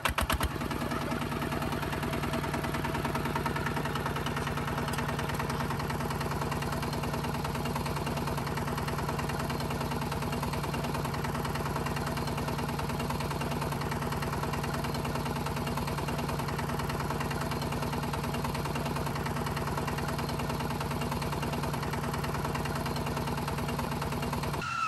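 Small engine of a DIY mini tractor running steadily at a constant speed with a fast, even pulse, cutting off suddenly near the end.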